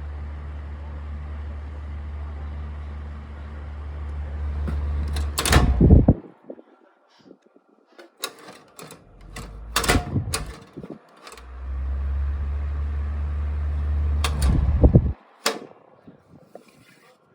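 1996 Mitsubishi EX-25LH3 ventilation fan running with a steady low hum that swells slightly, then cutting off amid loud clicks. After a few more clicks it starts up again, hums for a few seconds, and stops again with a burst of clicks.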